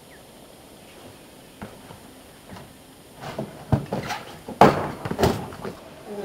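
A trials unicycle's tyre landing on stacked wooden pallets: a run of knocks and thuds starting about three seconds in. The last ones come as the rider falls off the pallets and the unicycle drops onto the road near the end.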